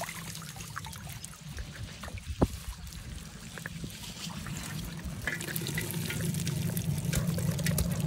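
Water trickling and dripping from a woven bamboo fish trap as it is lifted out of a ditch to drain, with scattered small clicks and one sharp knock about two and a half seconds in. A low rumble builds in the second half.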